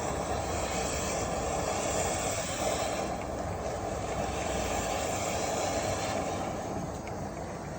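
Dryer vent cleaning equipment running steadily, a continuous rushing machine noise with no breaks.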